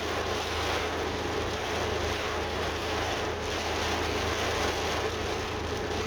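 Heavy rain pouring down in a steady hiss, with running storm water, during a downpour heavy enough to nearly overwhelm a drain.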